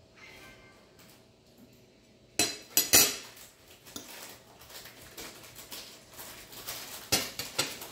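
Metal fork and spoon clinking against a dinner plate: a cluster of sharp clinks about two and a half seconds in, the loudest near three seconds, then lighter scattered clinks.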